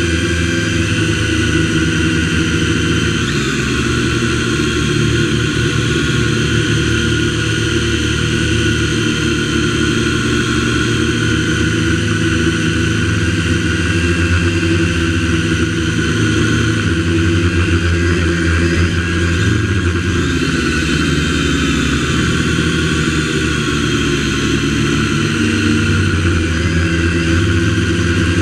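MJX X101 quadcopter's motors and propellers whirring steadily in flight, heard close up from a GoPro mounted on the drone itself. The pitch dips and rises a little now and then as the throttle changes.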